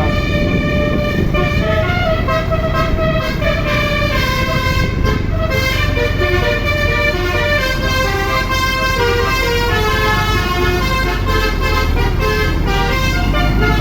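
Basuri telolet musical horn on a bus playing a long melody, one held note after another in steady steps, over the low sound of the running engine.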